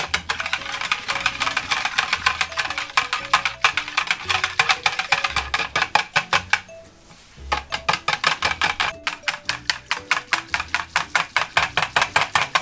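Wire whisk beating a milky liquid in a plastic measuring jug, its wires rattling against the jug in rapid, regular clicks about seven a second, with a short pause a little past halfway. Light jazz background music plays underneath.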